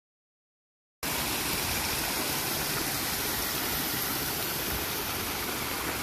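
Silence, then about a second in a steady rush of shallow creek water flowing over low rock ledges starts abruptly.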